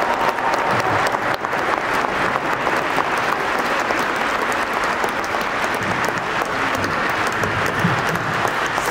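Crowd applauding steadily, the dense patter of many hands clapping.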